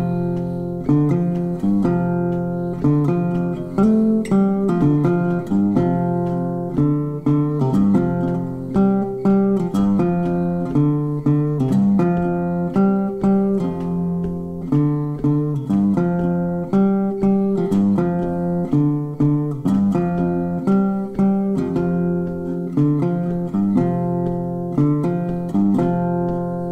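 Background music: an acoustic guitar picking notes in a steady, even rhythm.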